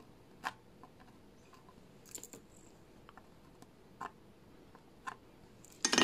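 Soldering iron tip worked along the pins of a surface-mount chip coated in flux: faint room tone broken by a handful of scattered small clicks and ticks, a little louder near the end.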